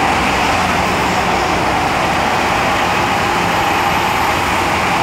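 MTR M-Train electric multiple unit running between stations: a steady, loud rumble of wheels on rail with a steady high tone over it.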